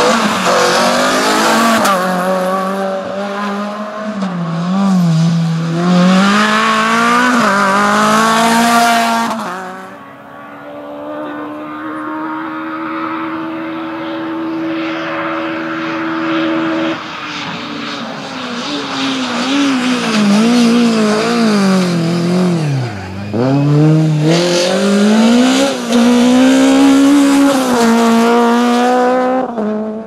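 Rally car engines driven hard on a stage, revving up and down through the gears with the pitch climbing and dropping at each shift and lift. The first is a Renault Clio rally car. A farther-off car holds a steadier, quieter note through the middle, then loud revving returns.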